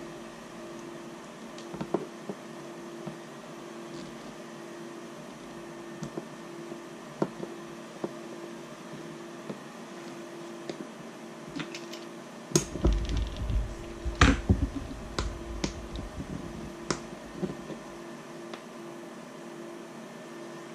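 Small clicks and knocks of a 3D-printed plastic gimbal part and servo being handled and pushed to make it fit, with a busier run of louder knocks and rustling about two-thirds of the way through. A faint steady hum runs underneath.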